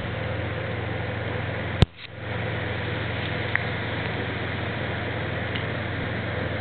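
Boat engine running with a steady, even hum. A sharp click about two seconds in is followed by a brief dip in the sound before the hum returns.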